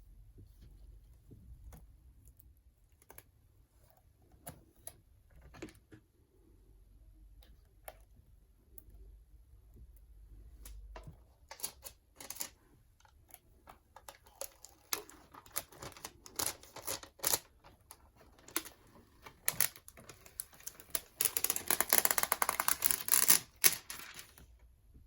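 Scattered small clicks and taps of hands working at a repair bench, growing busier about halfway through and ending in a few seconds of dense, loud crackling rattle.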